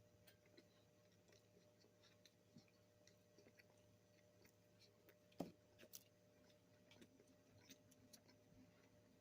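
Near silence with faint, scattered chewing and mouth clicks from someone eating, a sharper click about five and a half seconds in, over a faint steady hum.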